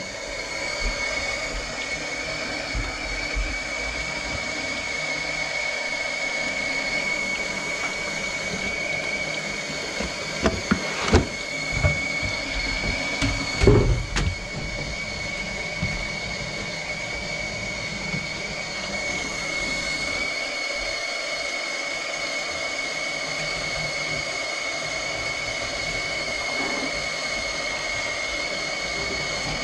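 A steady mechanical hum with a constant high whine, overlaid by a few knocks and clatters of handling about ten to fourteen seconds in.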